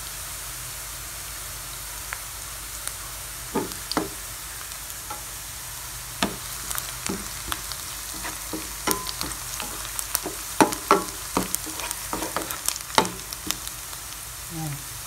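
Chopped red onion and garlic sizzling in hot oil in a pan, with a steady frying hiss. A spatula scrapes and taps against the pan as they are stirred, and the strokes come more often in the second half.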